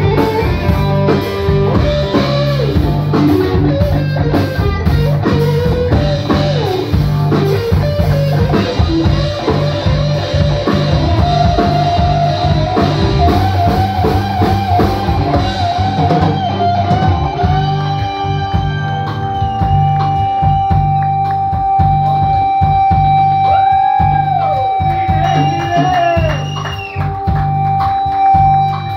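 Live blues-rock band: a semi-hollow electric guitar solos over bass guitar and drum kit. It plays quick runs of notes, then from about halfway holds a long high note with vibrato, with a few string bends near the end.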